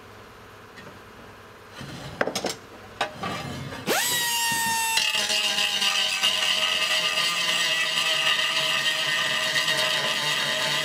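A small handheld power grinder spins up with a quick rising whine about four seconds in, then grinds steadily against a bare metal motorcycle gas tank. Before that come a few knocks as the tool and tank are handled.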